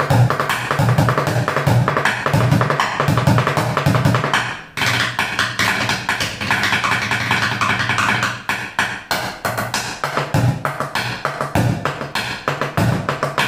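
Upturned plastic buckets played fast with wooden drumsticks: a dense run of strokes with low thuds. About five seconds in, after a brief gap, the low thuds mostly drop out for a few seconds of lighter, sharper strokes, then come back.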